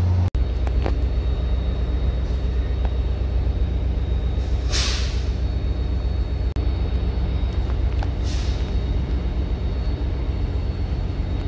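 Diesel locomotive idling with a steady low rumble. Two short hisses of compressed air are released, about five seconds in and again, fainter, about eight seconds in.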